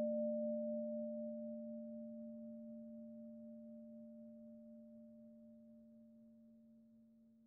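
A low, steady ringing tone with one higher overtone, slowly fading away like a struck bowl or bell ringing out.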